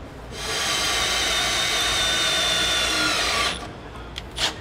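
Cordless drill with a 21/64-inch bit boring through a steel trailer frame, a steady whine that starts about half a second in and stops after about three seconds once the hole is through.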